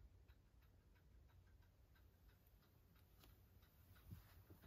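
Near silence: room tone with faint, repeated ticking.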